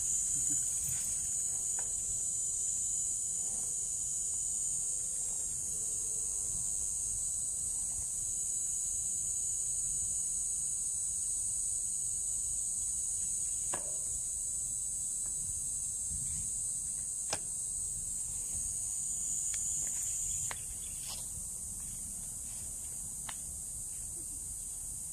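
Insects buzzing outdoors in a steady, high-pitched drone that becomes quieter about twenty seconds in, over a low rumble and a few faint clicks.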